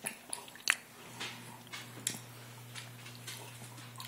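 A small child's hiccups: a short, sharp hic about a second in and a fainter one around two seconds, among light clicks, over a steady low hum that starts about a second in.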